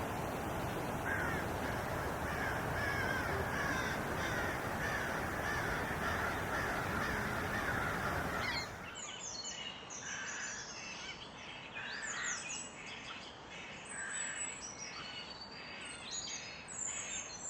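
Birds calling over a steady rushing noise. About nine seconds in, the scene cuts to several birds: repeated harsh calls mixed with quick high chirps.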